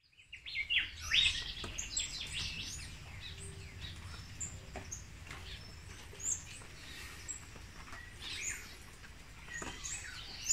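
Several songbirds singing and chirping, with many short calls and trills overlapping, over a low steady background rumble.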